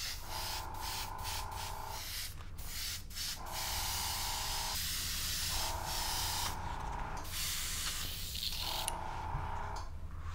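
Airbrush spraying a thin paint wash: a hiss of air and paint that comes and goes in several bursts as the trigger is worked, with a steady tone under each burst.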